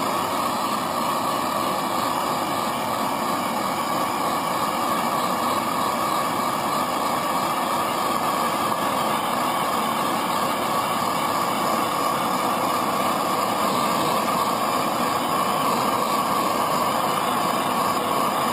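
Small handheld gas torch burning with a steady hiss, its blue flame played over a welding lead.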